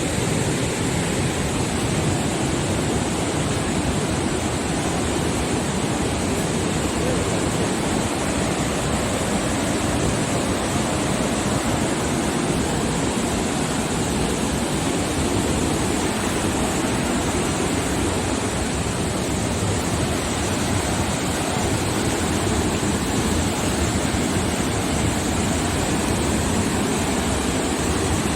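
Steady rushing roar of Athirappilly Falls, a large waterfall, an unbroken wash of falling water.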